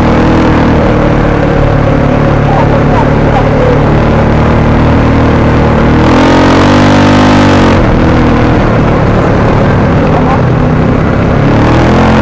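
Engine of an off-road vehicle running loud under way on a dirt track, heard from on board. It revs up and eases back down about six seconds in, then starts to rise again near the end.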